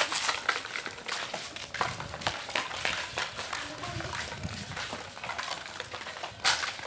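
Footsteps walking on a street: an irregular run of short scuffs and crunches, with one louder knock about six and a half seconds in.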